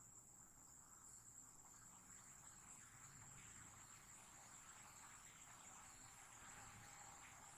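Near silence: faint room tone with a thin, steady high-pitched tone.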